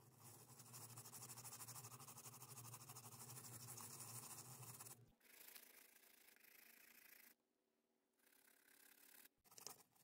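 Faint, rapid scrubbing of a swab rubbed back and forth over a portable CD player's circuit board, cleaning off spill corrosion and grime. It is steadiest in the first half, then quieter and broken up, with a brief louder scrub near the end.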